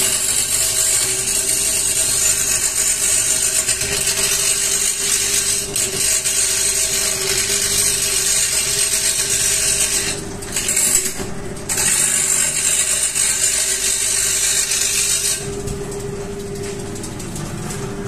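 Hand-held wood-turning chisel cutting a long hardwood spindle on a running wood lathe: a steady hissing cut over the lathe's hum. The cut lifts off briefly twice about ten to eleven seconds in and stops about three seconds before the end, leaving the lathe spinning.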